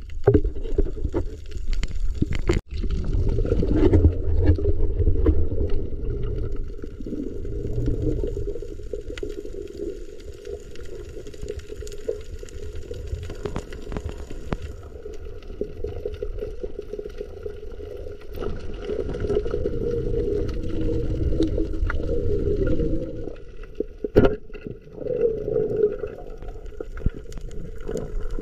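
Muffled underwater sound from a camera below the surface: a steady low rush of moving water, with a few sharp clicks, the loudest about three-quarters of the way through.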